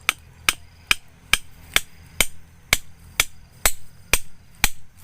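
A hand tool striking in sharp, evenly spaced blows, a little over two a second, eleven or so in a row.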